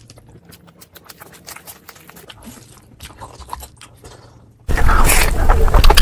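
Close-miked eating sounds: a person chewing and crunching food, with soft wet clicks at first, then suddenly much louder chewing about three-quarters of the way through.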